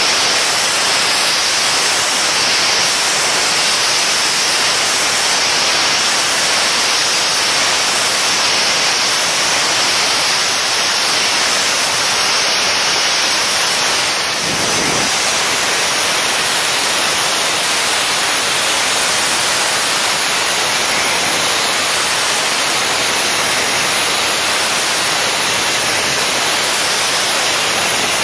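Loud, steady hissing noise, like rushing air or water, dipping briefly about halfway through.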